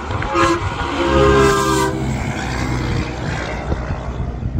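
Semi-truck air horn sounding a short toot, then a blast of about a second with several tones at once, over the rumble and tyre rush of trucks passing on the highway.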